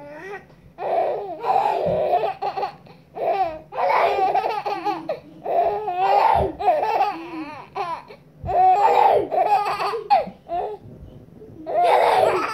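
A baby laughing in repeated bouts, one every couple of seconds, with short quiet gaps between them.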